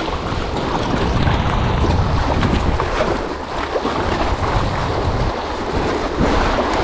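Sea waves washing and breaking against shoreline rocks, with wind buffeting the microphone in a heavy, uneven rumble.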